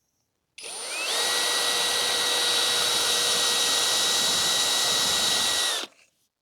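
Electric drill boring a small hole through a dried gourd shell. It spins up with a rising whine, runs steadily for about five seconds, then winds down and stops.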